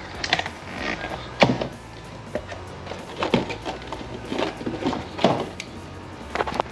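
Plastic blister packaging and a coiled steel cable lock being handled and unpacked by hand, with irregular crinkles and a few sharp clicks.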